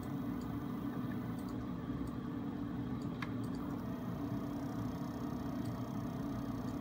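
A small electric motor drives a paddle stirrer with a steady hum. A faint higher whine joins about four seconds in as the motor speed is slowly raised. A single light click comes about three seconds in.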